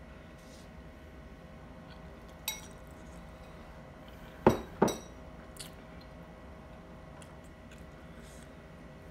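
A fork clinking against a dish: one light clink, then two sharp, louder clinks close together about halfway through, and a faint one after. A steady low hum runs underneath.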